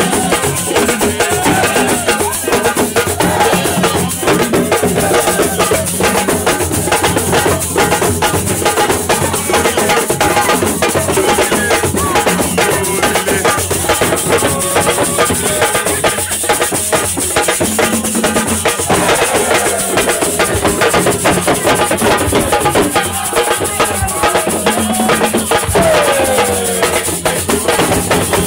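Music driven by fast, dense drumming and percussion, with wavering melodic lines over the beat.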